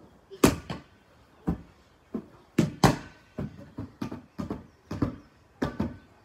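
Large clear inflatable ball being slapped by hand, kicked and bounced: about a dozen sharp slaps and thumps at uneven intervals, some in quick pairs, the loudest about half a second in and near three seconds in.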